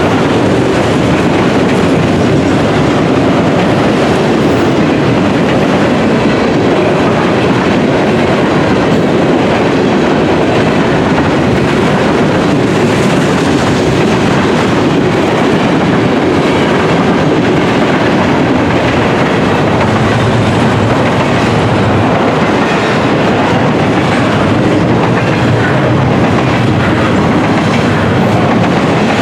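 CN freight train's cars rolling past at close range, a loud, steady noise of steel wheels on the rails with no horn.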